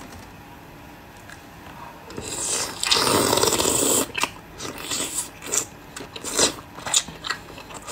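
Close-up eating sounds: a long, loud wet slurp at a sauce-dipped, donut-shaped food starting about two seconds in. After it comes a run of short, sharp lip smacks and chewing clicks.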